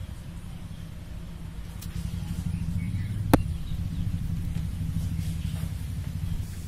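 A steady low rumble, growing a little louder about two seconds in, with one sharp knock just after three seconds in.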